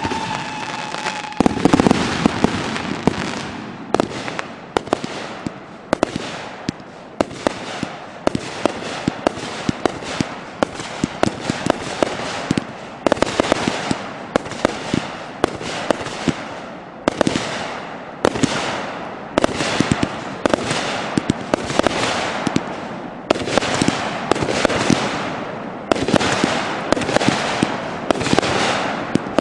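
Consumer aerial fireworks going off in rapid succession: a steady run of sharp launch thumps and bangs from breaking shells, about one to two a second, over the rushing hiss of rising comets and crackling stars. A falling whistle fades out in the first second or so.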